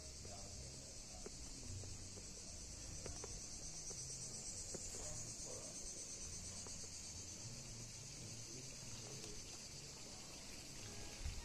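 A steady, high-pitched chorus of insects chirring, swelling slightly in the middle.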